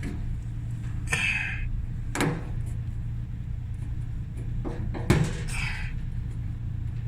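A few knocks and short scrapes as a dryer drum support roller, fouled with hair, is worked loose by hand, over a steady low hum.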